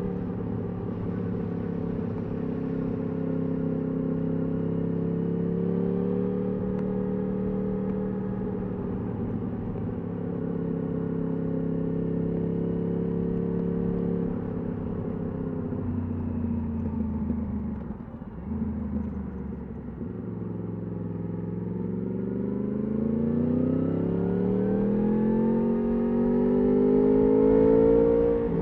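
Yamaha R1's crossplane inline-four through an Akrapovič exhaust, heard from the rider's seat. It runs at steady revs for the first half, drops to lower revs with a brief throttle-off dip about two-thirds of the way in, then pulls hard with steadily rising pitch until the revs fall back sharply at the very end.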